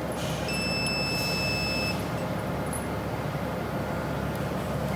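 Vertical injection molding machine running with a steady hum, with one high electronic beep about half a second in that lasts over a second.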